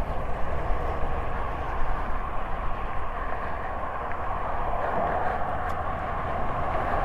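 Steady rushing road noise from highway traffic and the ride itself, with a low wind rumble on the microphone.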